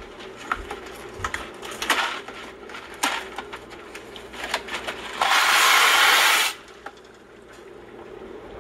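Kitchen handling sounds: scattered clicks and knocks, then a loud rush of noise lasting just over a second, about five seconds in.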